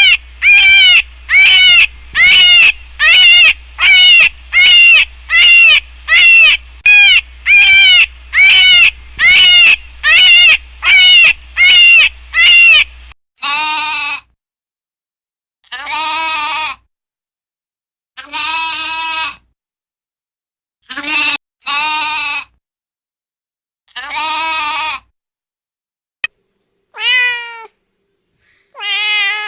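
Cat meowing: a quick run of short, high meows, about three every two seconds, over a low hum; then, from about thirteen seconds in, longer and lower meows with gaps of a second or two between them.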